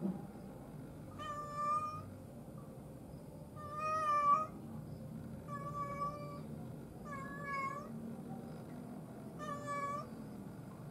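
Domestic cat meowing five times, a call every one and a half to two and a half seconds. The call about four seconds in is the longest and loudest.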